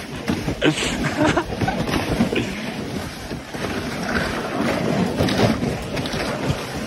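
Plastic ice-fishing sled being towed over crusted snow and ice, scraping and rattling along, with footsteps crunching in the snow and wind buffeting the microphone.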